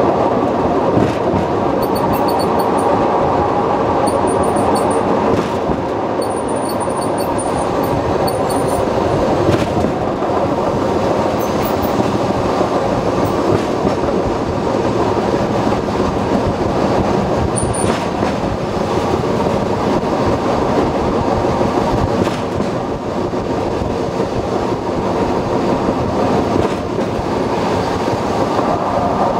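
Takachiho Amaterasu Railway trolley car running along the track: a steady rumble of wheels on rail, with short faint high squeaks in the first ten seconds and once more around the middle.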